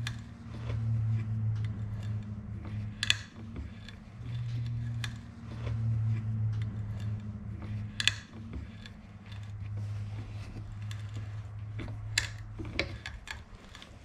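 Threads being cut by hand with a 3/8"-16 tap in a T-handle tap wrench into an aluminum block: scattered metallic clicks and ticks from the wrench and tap, a few of them sharp. A steady low hum, swelling and dipping, runs underneath and stops at the very end.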